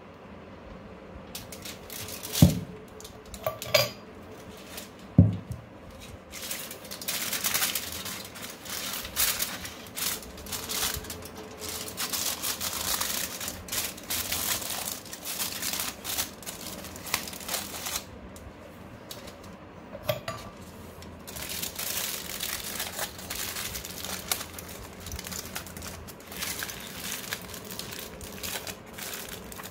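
Aluminium foil crinkling and crackling as it is crumpled and worked by hand, in two long spells. Near the start come three sharp clinks of glass and metal as a glass incense burner and its metal lid are handled.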